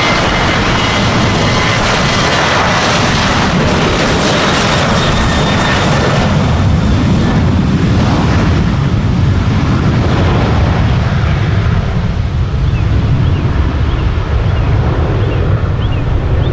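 Boeing 737-700's CFM56-7B jet engines at takeoff power as the airliner accelerates down the runway past the listener, a loud steady blast with a faint whine early on. From about two-thirds in, the hiss fades as the jet moves away, leaving a deep rumble.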